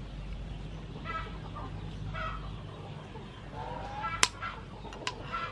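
Chickens clucking in short calls several times, with a few sharp clinks of a metal spoon against a clay pot, the loudest about four seconds in.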